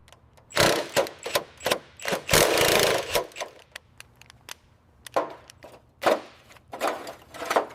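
Irregular bursts of workshop tool noise and scraping as an old car is stripped down, with short knocks in between and a longer noisy stretch about two to three seconds in.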